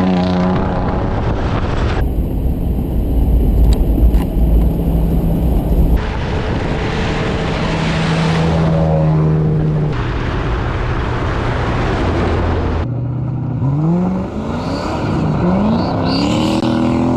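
Vintage car engines running on the road in several short clips that change abruptly every few seconds. In the last few seconds an engine revs up, rising in pitch several times.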